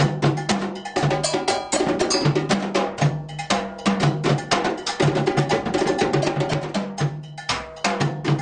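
A drum ensemble playing a fast rhythm: dense hand-drum strokes over a cowbell-like bell pattern, with short low drum notes moving between two or three pitches.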